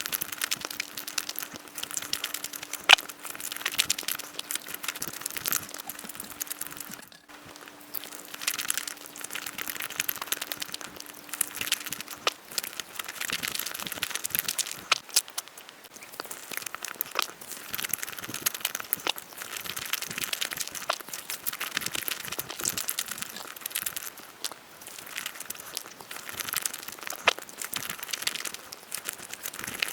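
Close-miked eating sounds of Nutella pancake crepes: a dense, crackly stream of chewing and wet mouth clicks with occasional sharper clicks. A faint steady hum runs underneath and stops about 12 seconds in.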